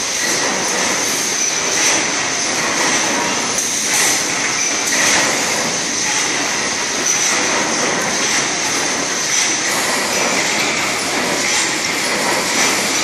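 Hydro-pneumatic deep drilling machine running, drilling steel on its peck cycle: a loud, continuous machine noise with a steady high whine.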